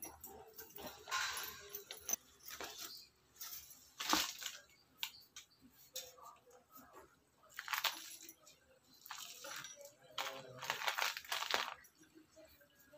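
Artificial jewellery being rummaged through and handled: scattered rustling with light metallic clinks and a few sharper clicks.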